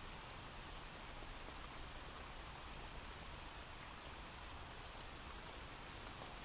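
Soft, steady rain ambience from a recorded rain sound effect played as a background bed, with a few faint drop ticks.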